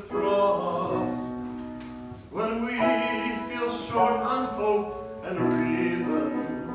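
Song sung with instrumental accompaniment: long held notes in phrases, a new phrase starting about two seconds in and another about five and a half seconds in.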